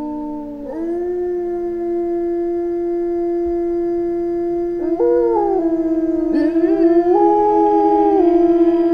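A small pack of Eurasian wolves (Canis lupus lupus) howling in chorus: several long howls held at different pitches, overlapping. About five seconds in, a new voice rises sharply and then falls away, and near the end one howl turns wavering.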